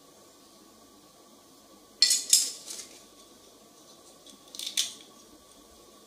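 Steel wood-carving chisels clinking and rattling against each other as they are handled, in two short clusters, about two seconds in and again near four and a half seconds.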